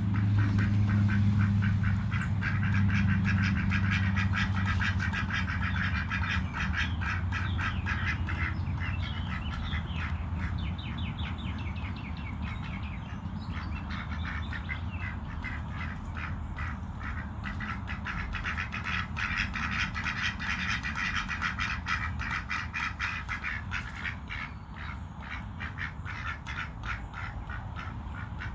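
Ducks giving a long run of rapid, low, chattering quacks, several a second, with short gaps, while they are being coaxed to take dried grubs. A low steady hum fades out during the first few seconds.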